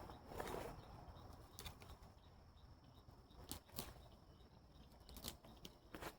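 Quiet outdoor background with a soft rustle about half a second in, then a few faint, separate clicks and ticks at irregular intervals.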